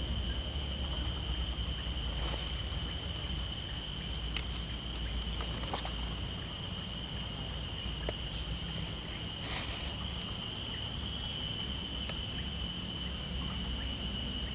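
Steady chorus of insects, a constant high-pitched drone at a few fixed pitches, with a low rumble underneath.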